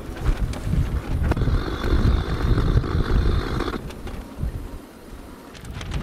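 Strong gusty wind buffeting the microphone, a low rumble that rises and falls. A higher hiss joins it for a couple of seconds, and the wind eases briefly about two-thirds of the way through.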